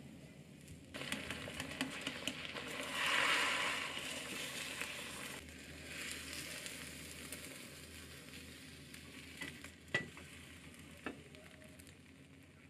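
Beaten egg sizzling in an oiled square cast-iron tamagoyaki pan. The sizzle starts suddenly about a second in as the egg goes in, is loudest shortly after, then slowly dies down. There is one sharp tap near the end.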